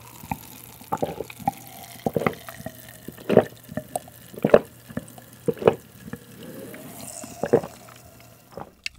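A person gulping pink soda from a glass mug close to the microphone: a string of swallows, roughly one a second.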